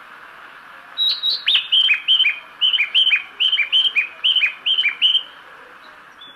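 Recorded birdsong chime played over a Japanese railway station's speakers: a run of evenly repeated paired chirps, each pair a high note then a lower falling one. It starts about a second in and stops just after five seconds, over a steady station hum. This is the kind of audible guidance signal that marks stairs and gates for visually impaired passengers.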